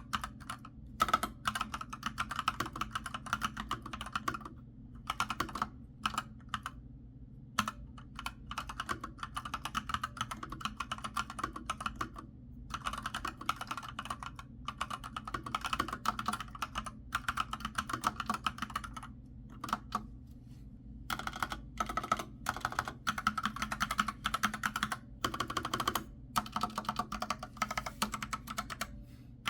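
A computer keyboard being typed on quickly, in runs of rapid key clicks broken by short pauses.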